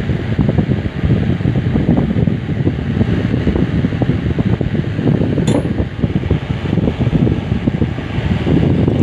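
Steady low rumbling air noise of a running fan, with one small sharp click about five and a half seconds in.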